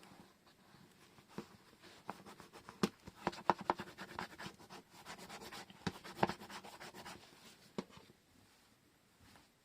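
Hands handling washi tape rolls and paper craft materials on a desk, a faint run of rubbing and scratching with irregular sharp clicks and taps, busiest in the middle.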